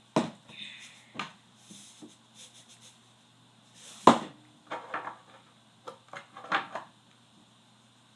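Sharp knocks and crackling clicks of a hard-boiled egg's shell being tapped on a hard surface and cracked, the loudest knock about four seconds in.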